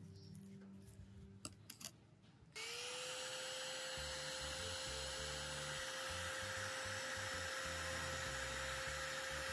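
Faint crinkles and taps as foil is pressed around a mould, then about two and a half seconds in a heat gun switches on: its fan whine rises briefly and settles into a steady tone over a loud, even hiss of blown air.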